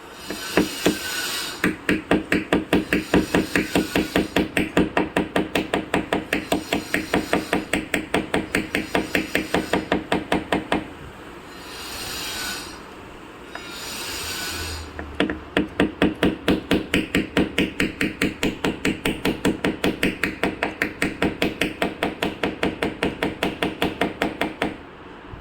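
Hammer tapping quickly and evenly on dent-repair tools, about five light taps a second, in two long runs. Between the runs, a gap of a few seconds holds two short hissing sounds.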